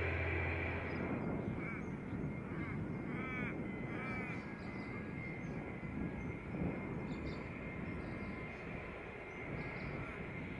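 Birds calling: a run of short, arching, crow-like calls about two to four seconds in, over a steady low rumble. A low engine hum cuts off just under a second in.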